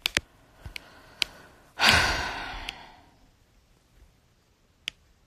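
A person's loud sigh close to the microphone about two seconds in, fading away over about a second. A few small clicks come before it and near the end.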